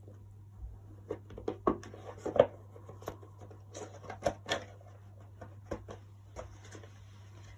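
Oracle cards being handled and shuffled: a run of irregular soft clicks, taps and rubbing, busiest in the first half, over a steady low hum.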